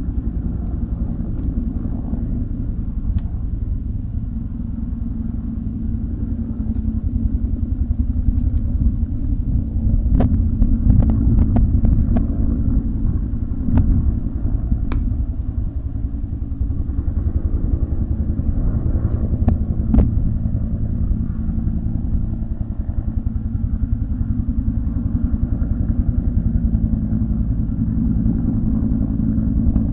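Dirt bike engine idling steadily, with a few short sharp clicks near the middle.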